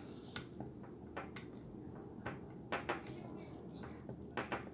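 Small, sharp clicks of a lock pick and tension wrench working the security pins inside an Abus 72/40 padlock, about eight irregular clicks with a low steady hum underneath.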